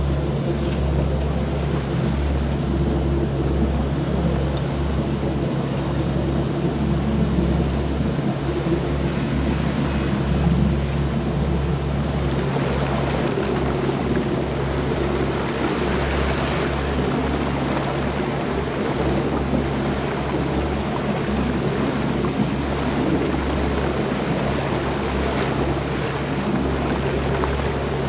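Boat engine running at a steady low drone, with a hiss of water and wind over it.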